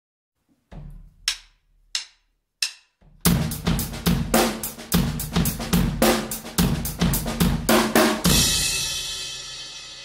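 Drum kit intro: four separate hits in the first three seconds, then a steady run of snare and bass drum strokes about three to four a second, ending a little after eight seconds on a cymbal crash that rings out and slowly fades.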